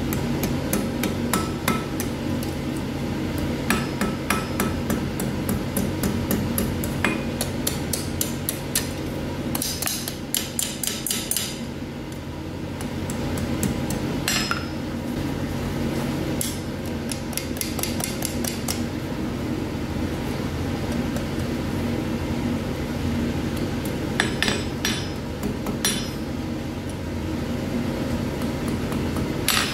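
Blacksmith's hand hammer striking a small piece of hot iron held in tongs on an anvil, forging it in runs of quick blows separated by short pauses.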